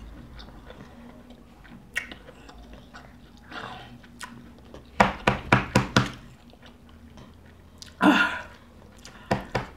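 A woman coughing and gagging in a staged choking fit: a quick run of about six hard coughs about five seconds in, a single harsh, strained gasp about eight seconds in, and another string of rapid coughs starting near the end.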